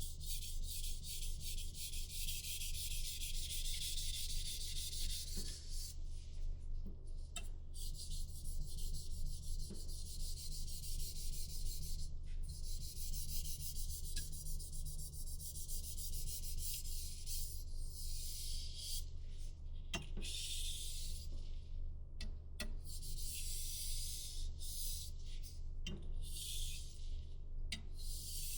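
A knife blade sharpened on a whetstone: repeated scraping strokes with short pauses between runs, over a steady low hum.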